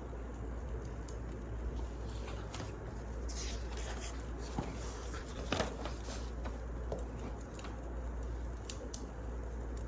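Firewood burning in a fireplace: a steady low rumble with scattered crackles and pops, busiest in the middle, the loudest pop about five and a half seconds in.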